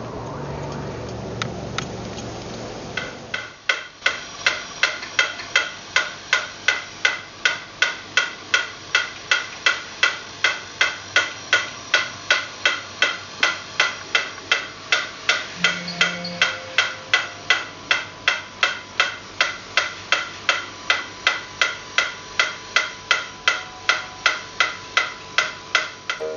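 Sharp, evenly spaced knocks at a steady rate of about two a second, starting a few seconds in, after a softer, noisy stretch.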